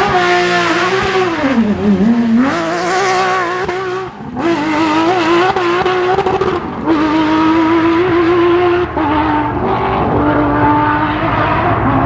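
Porsche 997 GT3 rally car's flat-six engine pulling away from a stage start at full throttle. The revs sag about a second in as it launches, climb again, and break for an upshift just after four seconds. It then runs hard and steadily, with further gear changes near seven and nine seconds.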